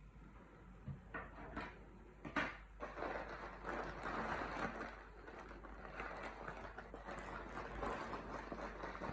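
A few sharp clicks, then a steady scratchy rubbing or scraping noise for several seconds.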